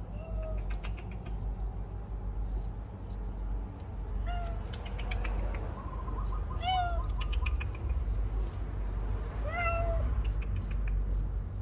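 Cat meowing: four short meows a few seconds apart, over a steady low hum.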